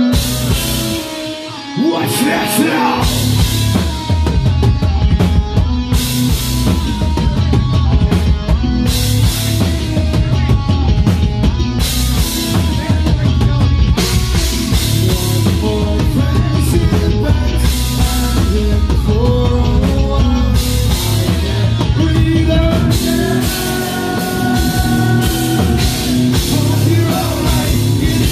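Nu metal band playing live: distorted guitar, bass and drum kit with crashing cymbals, and a singer's vocals. The drums and bass are out for the first couple of seconds, then the full band comes back in hard and plays on loudly.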